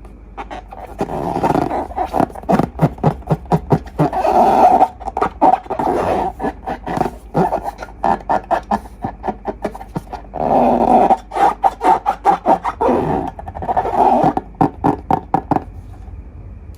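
Slime and long rubber balloons being squeezed, giving rapid wet crackling and rubbery squeaking in two long bouts with a short lull between.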